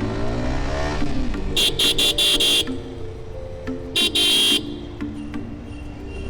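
Vehicle horn honking, a quick run of four or five short honks, then a short toot and a longer blast, over engines running and changing pitch in traffic.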